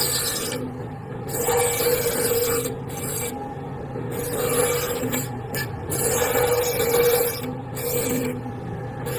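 A hand tool worked across wood in repeated strokes, a rasping scrape roughly every second and a half with short pauses between strokes.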